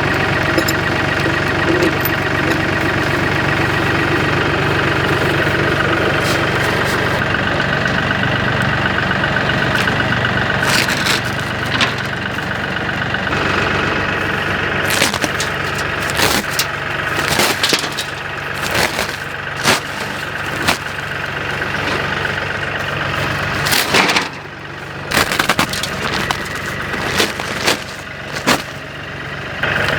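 An engine idling steadily, with a series of sharp knocks and clatters starting about ten seconds in.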